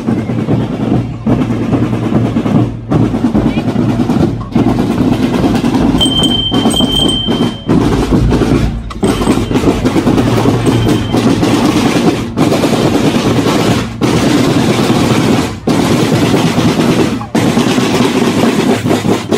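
School marching band drum line playing a marching cadence on snare drums close by, loud and continuous with short regular breaks in the rhythm. A high steady tone sounds for about a second and a half around six seconds in.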